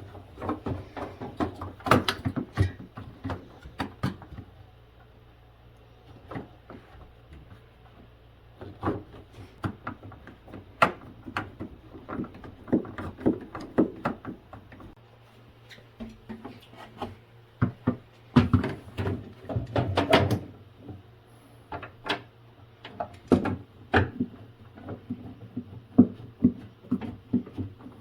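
Irregular plastic clicks, knocks and rattles as a refrigerator's interior parts (cover panel, shelves, crisper drawers) are handled and fitted back in place, with a few quieter pauses.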